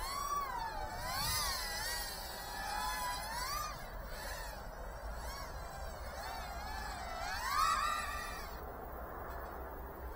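Tiny 1S quadcopter with 2-inch props flying, its motors whining and wavering up and down in pitch as the throttle changes. The whine is loudest in a rising sweep about seven and a half seconds in.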